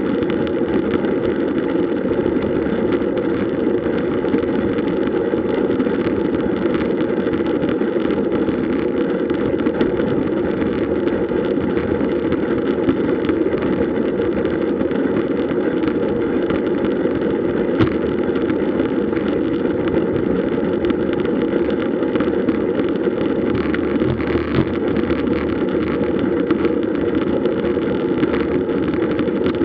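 Steady rush of wind and tyre noise on the microphone of a camera riding along on a moving road bike, with a couple of brief knocks about two-thirds of the way through.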